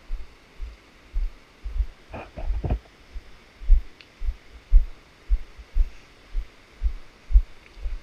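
Footsteps of a person walking at a steady pace, picked up by a body-worn action camera as dull low thuds about two a second, with a few sharper cracks about two seconds in.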